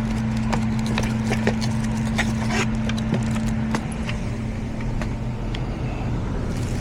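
Scattered light clicks and knocks of a Honeywell zone damper motor being handled and fitted against its damper, over a steady low hum. The clicking thins out and the hum drops a little about four seconds in.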